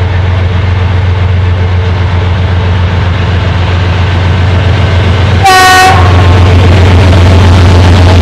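Two ST40s diesel locomotives hauling a freight train, their engines giving a steady low drone as they approach and pass. About five and a half seconds in, one short horn blast.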